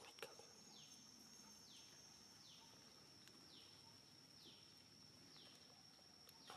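Faint outdoor ambience: a steady high-pitched whine with a short falling call repeating roughly once a second, and a few faint clicks near the start.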